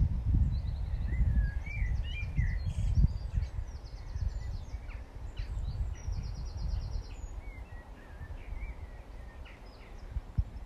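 Wind buffeting the microphone, strongest in the first few seconds and easing later, with several songbirds singing: short chirps and two quick trills of repeated notes.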